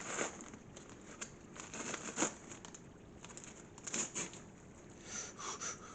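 Paper microwave popcorn bag crinkling in short, irregular bursts as it is handled.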